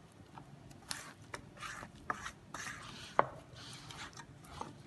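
Thick flour batter being beaten in a stainless steel bowl: irregular wet swishes, with a sharp click against the bowl a little past three seconds in.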